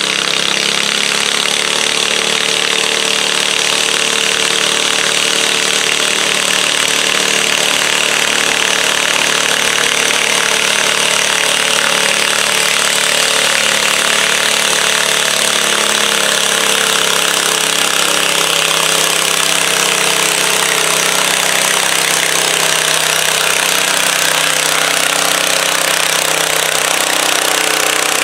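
Cub Cadet garden tractor engine running steadily at high throttle under load as it drags a weight sled down the pulling track.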